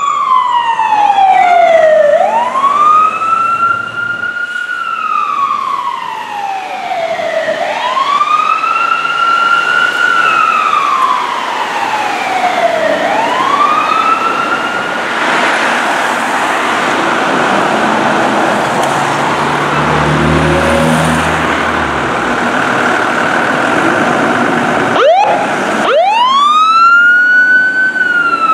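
Fire truck siren wailing, its pitch climbing and then sliding slowly down, about once every five seconds. In the middle stretch the wail gives way to a steadier rushing noise, and near the end the wail starts up again.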